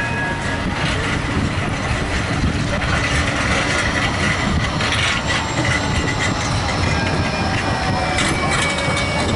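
Bombardier Flexity 2 tram passing close by on street track: a steady rumble of steel wheels on the rails with a faint high whine above it.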